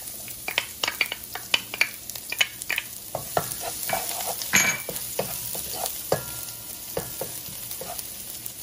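Minced garlic sizzling in hot vegetable oil in a nonstick pot, with a wooden spatula scraping and knocking against the pan as it stirs, in many short strokes over a steady hiss.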